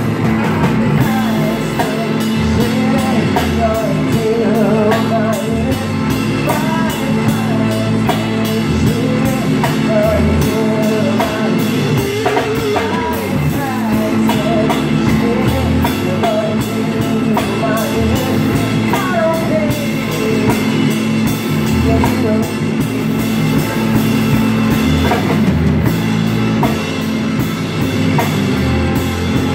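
Live rock band playing: electric guitar over electric bass and a drum kit.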